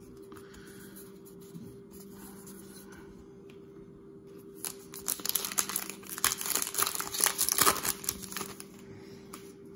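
A baseball-card pack's wrapper being torn open and crinkled in the hands. About halfway in, it gives roughly three and a half seconds of loud, dense crackling.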